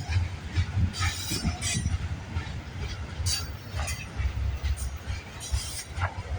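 CN intermodal freight train's cars rolling past slowly, a low rumble with irregular clunks from the wheels and couplers and short high-pitched wheel screeches now and then.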